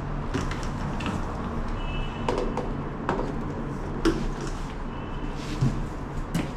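Plastic vacuum-cleaner parts being handled, giving scattered light knocks and clicks over a steady low hum.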